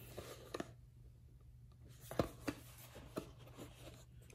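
Faint handling noise of a cardboard model airplane box being turned over in the hands: light rubbing with a few soft taps, the sharpest about two seconds in.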